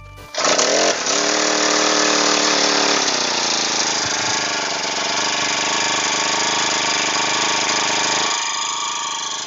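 Firman FGT438 four-stroke backpack brush cutter engine starting up about half a second in, running fast for a couple of seconds, then dropping at about three seconds to a lower, steady idle.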